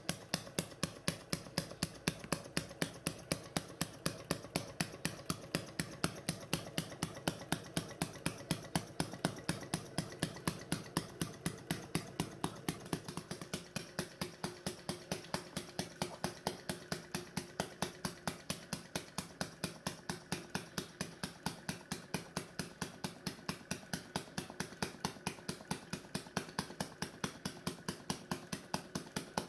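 Model vacuum (flame-licker) engine running, a fast even ticking from its moving parts with each turn of the flywheel.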